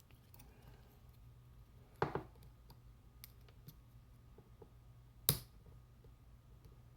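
Locks and metal picking tools being handled on a hard surface: two sharp clacks, the first about two seconds in with a brief ringing tail, the second about five seconds in, with faint small ticks between, over a steady low hum.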